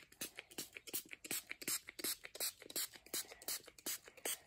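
Quick, rhythmic scratchy rubbing strokes, about four or five a second, as something is rubbed or scrubbed by hand.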